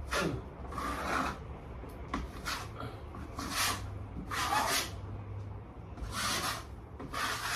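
Short scraping strokes, roughly one a second, of a hand tool working the plaster ceiling patch.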